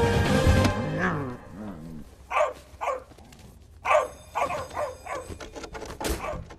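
Music fades out over the first second or two, then a dog barks in a quick run of short barks and yips.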